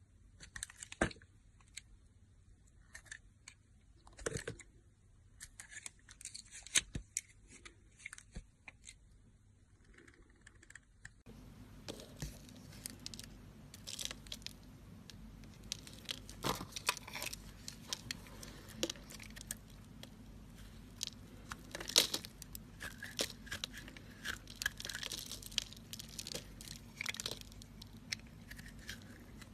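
Crisp tearing and crunching crackles, sparse at first. About eleven seconds in, after a cut, they come thicker over a steady background hiss.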